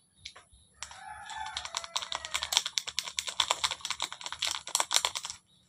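Rapid, dense crackling and clicking of a small plastic packet being handled and crumpled in the fingers, for about four seconds. Over the first half of it a rooster crows in the background, one long rising-then-falling call.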